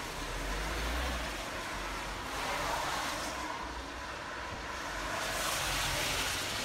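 Vehicles passing on a rain-wet road, their tyres hissing in about three swells, one after another; the last swell, near the end, is a small van going by.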